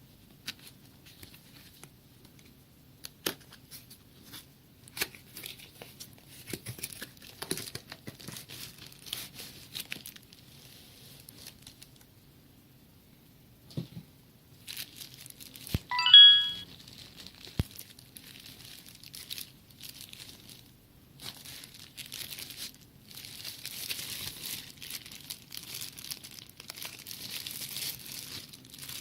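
Packaging crinkling and tearing as a digital kitchen scale is unboxed, with scattered clicks and handling noise. About halfway through there is one brief ringing tone, the loudest sound.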